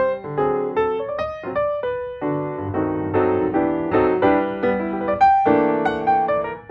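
Background piano music: chords and a melody of struck notes that ring and fade.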